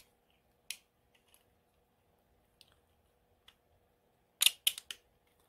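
Hard 3D-printed plastic parts of an eggbeater hand drill clicking and knocking together as a tapered plastic piece is worked down through a hole in the frame: a single click a little under a second in, a few faint ticks, then a quick cluster of four or five sharper clicks near the end.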